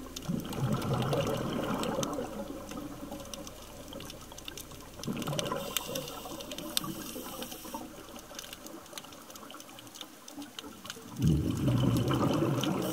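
Scuba diver's exhalation bubbles rushing from the regulator underwater, three times about five to six seconds apart, over a constant crackle of faint clicks.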